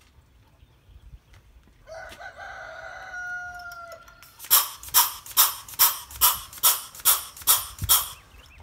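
Air-powered Locknlube grease gun pumping grease into a tractor loader's grease fitting: nine quick, sharp strokes at a little over two a second in the second half. Before that, about two seconds in, a steady pitched sound with a hiss behind it lasts about two seconds.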